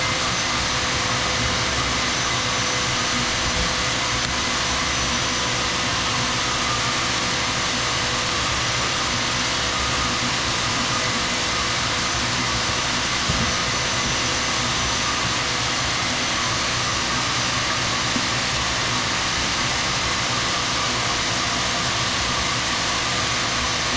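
A machine running steadily: an even, unbroken motor noise with a faint steady hum and no hammering strokes.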